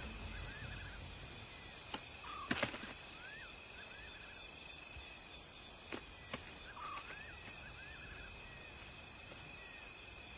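Night-time insect chorus: a high pulsing chirp repeating about once a second over a steady high trill, with short rising calls and a few faint clicks.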